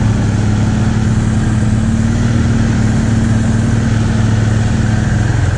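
ATV engine running steadily at a constant pitch, easing slightly near the end.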